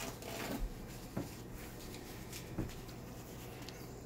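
Faint handling sounds from hands working at a kitchen counter: three light taps or clicks over low room noise.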